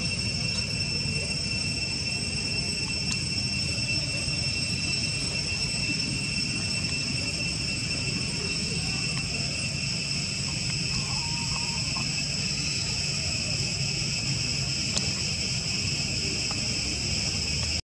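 Insects droning steadily at several high pitches over a low background rumble, with a couple of faint clicks.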